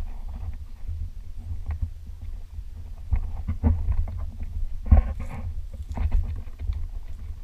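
Low rumble of wind and handling noise on a handheld camera's microphone, with scattered knocks from footsteps on rocky ground as it is carried along.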